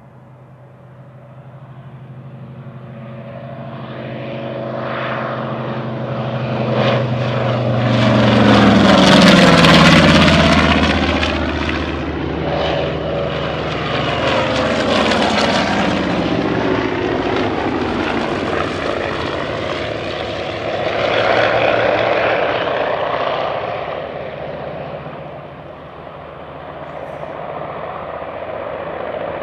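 Radial-engined vintage warbirds flying past. Engine drone builds to a loud low pass about ten seconds in, its pitch dropping as the aircraft goes by, then further passes swell and fade.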